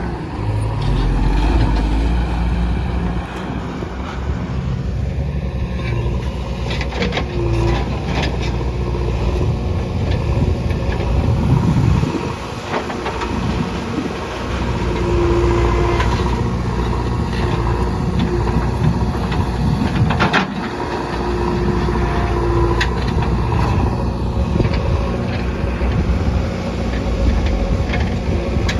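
JCB backhoe loader's diesel engine running under working load, its level swelling and dipping, with several sharp knocks spread through.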